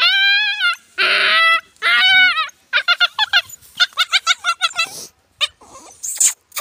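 Injured puppy crying out in pain after a bigger dog's attack: high, wavering whines and yelps. Long drawn-out cries come first, then a quick run of short yelps, fading to faint whimpers near the end.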